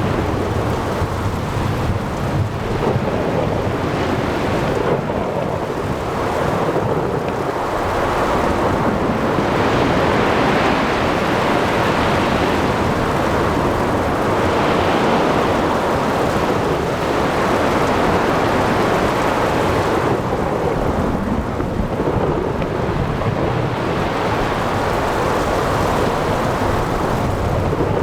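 Thunderstorm over the sea: steady rain and wind with rumbling thunder and surf. The dense noise swells and eases every few seconds, with no sharp cracks.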